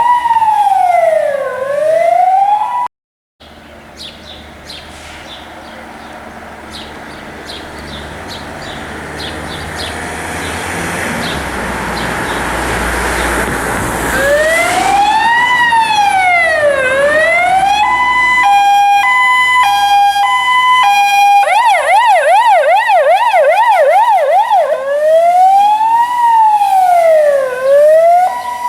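Fire engine's electronic siren on test, cycling through its tones: a slow wail that cuts off abruptly about three seconds in, then a rushing noise that grows steadily louder for about ten seconds, then the siren returns with a wail, a two-tone hi-lo, a fast yelp and another wail.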